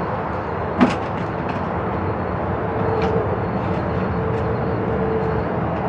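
Steady low outdoor background rumble, with one sharp click about a second in and a faint steady hum in the middle.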